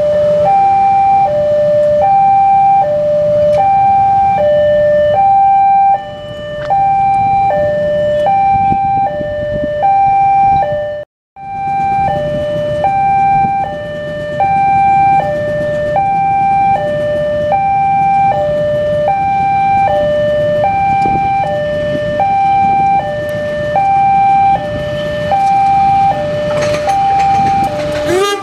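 Railroad level-crossing warning alarm sounding its two-tone electronic chime, a high note and a lower note alternating about once a second, over a low rumble. The audio briefly drops out partway through.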